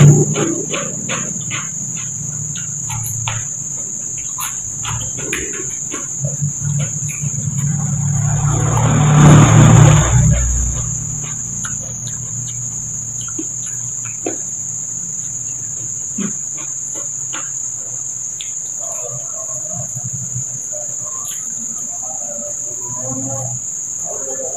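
Crickets chirring in a steady high drone, over close-up chewing and crunching, most frequent in the first few seconds, from raw cucumber and rice being eaten. A rushing noise swells from about seven seconds in, becomes the loudest sound, and cuts off suddenly near ten seconds.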